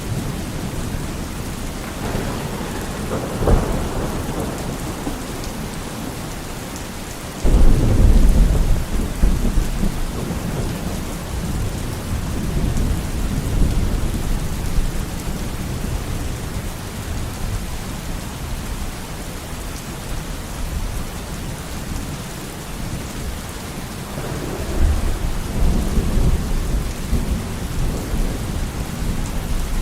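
Steady heavy rain with thunder: a sharp crack about three seconds in, then a sudden loud low peal about seven seconds in that rolls on and fades over several seconds, and another rumble near the end.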